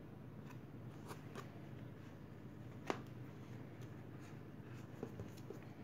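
Faint handling sounds of crocheting with velvet yarn: yarn drawn and rubbed through the fingers, with a few light clicks and taps from the crochet hook and the plastic lid form, the sharpest about three seconds in. A low steady hum of the room sits underneath.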